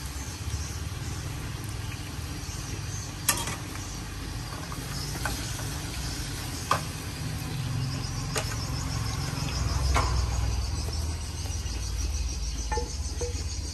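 Meatballs in sauce sizzling in a metal pan, stirred and then scraped out with a metal spoon that clinks against the pan every second or two, over a low steady rumble.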